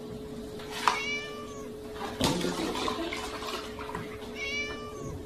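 A kitten meows twice, two short falling calls, one about a second in and one near the end. Between them a sharp knock about two seconds in is followed by milk splashing as it pours from a tipped jug into a plastic tub.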